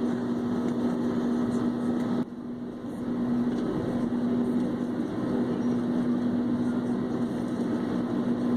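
Airliner cabin noise: the steady drone of the jet engines and airflow heard from inside the passenger cabin, with one steady low hum. It dips sharply about two seconds in and comes back within a second.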